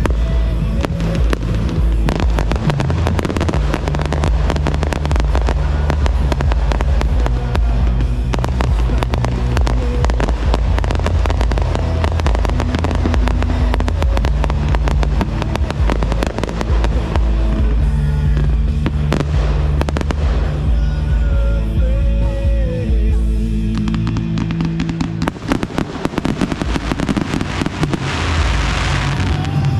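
Aerial fireworks going off in rapid succession, many overlapping bangs and crackles, over loud music from the pyromusical soundtrack. Near the end a dense crackling burst stands out.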